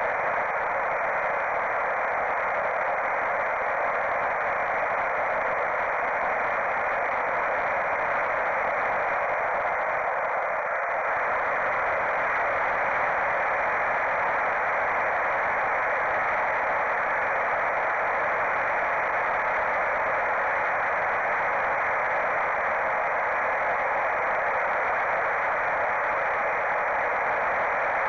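Steady hiss and rush from a mini flying wing's onboard FPV camera microphone, carried over the analog video link, with no clear motor tone standing out.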